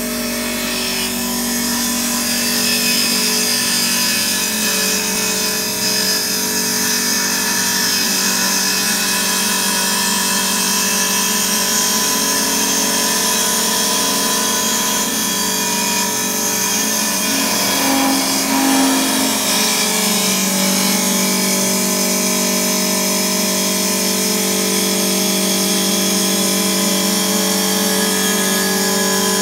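CNC wood lathe running, turning a wooden workpiece: a steady hum of several machine tones over a high hiss. The tones shift in pitch about two-thirds of the way through, then hold steady again.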